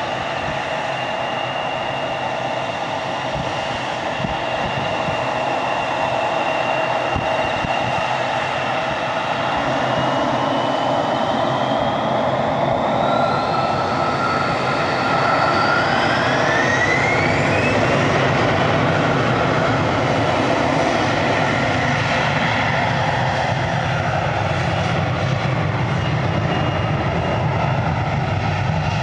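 Embraer 175 jet airliner's twin turbofan engines spooling up to takeoff thrust: a steady whine climbs in pitch and the engine noise grows louder about halfway in, then holds loud and steady as the jet begins its takeoff roll.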